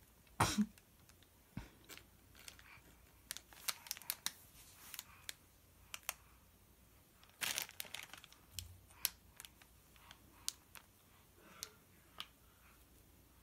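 A crinkly plastic packet crackling in a baby's grip as it is waved and squeezed, in irregular bursts of sharp crackles, loudest about half a second in and again around seven and a half seconds in.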